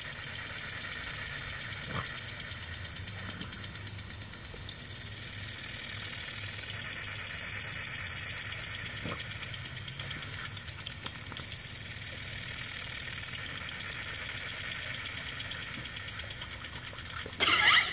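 Impact lawn sprinkler running: the rapid ticking of its swinging arm striking the water jet, over the hiss of the spray. A louder, rougher burst comes just before the end.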